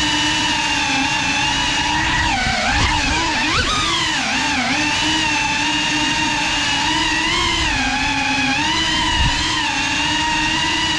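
Ducted 3.5-inch FPV cinewhoop drone's brushless motors and propellers whining steadily in flight, the pitch dipping and surging with throttle changes a few times between two and five seconds in.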